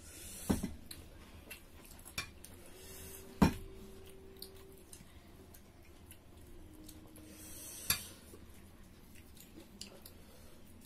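A metal serving spoon knocking against a glass serving bowl and plates, four sharp clinks. The loudest, about three and a half seconds in, leaves a brief ring, and another near eight seconds rings more softly.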